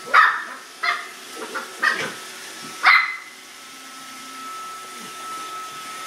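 A corgi barks about five times in the first three seconds at a running Roomba robot vacuum. After the barks the Roomba's steady hum, with a thin constant high tone, carries on alone.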